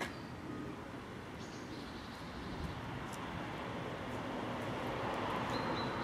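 Outdoor background noise, steady and swelling slightly near the end, with a few short high bird calls near the start, about a second and a half in, and near the end.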